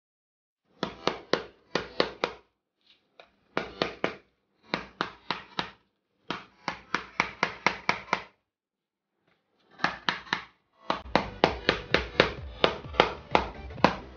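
Small mallet tapping rapidly on the plastic casing of a laptop power adapter, about five strikes a second, in short runs with brief pauses and then a longer unbroken run near the end. The knocks are meant to crack the glued seam of the case open.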